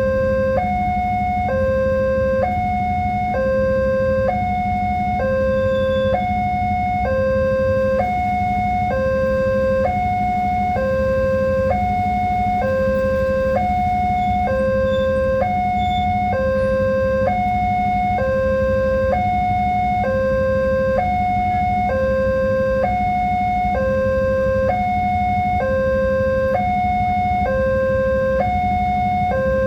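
Railway level-crossing warning alarm sounding continuously: two electronic tones alternate evenly, switching about once a second, with a steady low hum underneath. The alarm signals that the gates are closed and a train is approaching.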